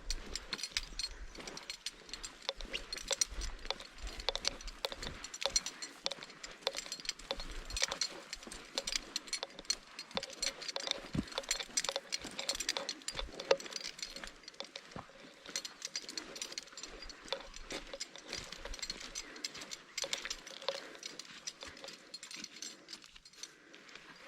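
Irregular clicking and jangling of small hard objects, many sharp clicks close together, with footstep-like knocks at times.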